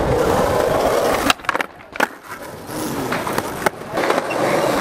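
Skateboard wheels rolling over rough asphalt, broken by a cluster of sharp board clacks about a second and a half in, then rolling again with a few lighter clicks.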